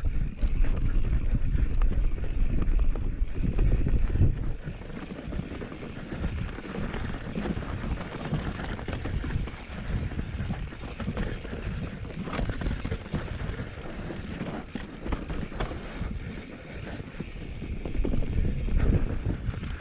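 Wind buffeting the microphone of a mountain bike's action camera during a fast descent, over the rumble of knobby tyres on dirt and rock and the clatter of the bike. The rumble is heaviest for the first four seconds and again near the end.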